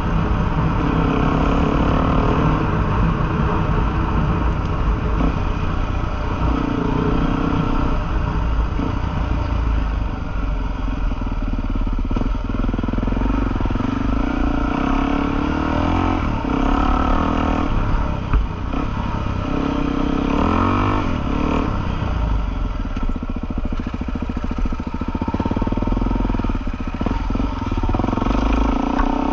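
Single-cylinder Suzuki trail bike engine running with the throttle rising and falling as it rides a rough dirt track, heard from on board the bike.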